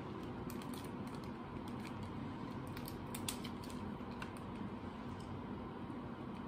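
Irregular crackling clicks from hands working through a plastic seafood-boil bag, handling and cracking crab legs. The clicks are thickest in the first half, over a steady low hum.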